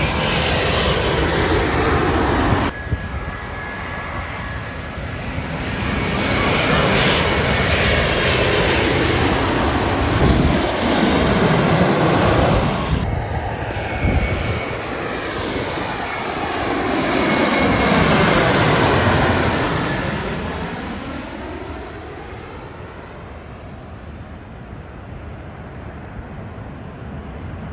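Airliners' jet engines passing low overhead on final approach, each pass a rush of engine noise with sweeping tones that glide in pitch as the aircraft goes over. The sound cuts abruptly about 3 s and 13 s in to new passes; the last one swells to its loudest a little past the middle and then fades as the aircraft moves away.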